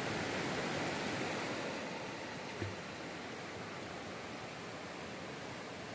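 Waterfall rushing steadily, with a single low thump about two and a half seconds in.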